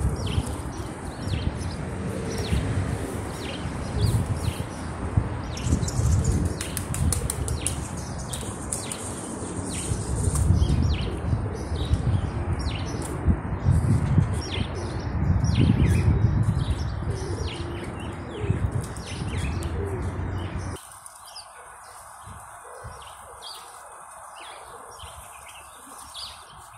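Many short bird chirps around a flock of feral pigeons, with fluttering and a heavy low rumble through the first twenty seconds. The rumble cuts off suddenly about twenty seconds in, leaving quieter chirping.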